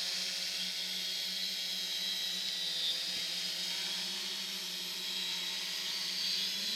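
A scratch-built multirotor drone hovering close by: its electric motors and propellers make a steady whirring hum with a high whine that drifts slightly in pitch as it holds position.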